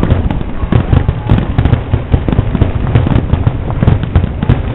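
Aerial fireworks shells bursting in quick succession during a fireworks finale: overlapping booms several times a second with sharp reports between them.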